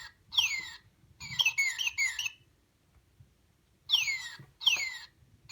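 Northern cardinal song played from a sound book's small speaker: long downslurred whistles followed by three quick, repeated notes, the phrase sung twice with a pause between.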